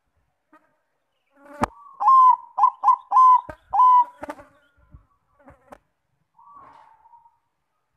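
Bangkok-type zebra dove (perkutut) singing: after a sharp click, a quick run of five short, clear cooing notes about two seconds in, followed by a few sharp clicks and one faint softer note near the end.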